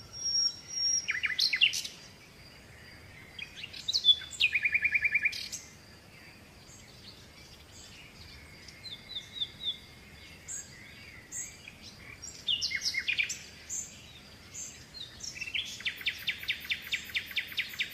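Wild birds calling: sharp chirps and short whistles, with a fast trilled run of repeated notes about five seconds in and another near the end.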